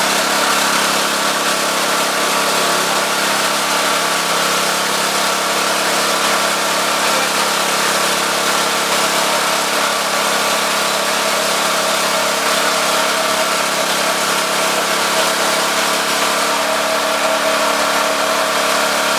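Forage cutter (chaff cutter) running steadily, a continuous even machine hum that holds the same pitch throughout.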